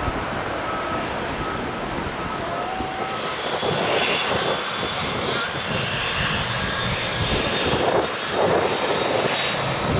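Airbus A319 corporate jet's twin jet engines running in a steady roar as the airliner rolls out and slows on the runway after landing.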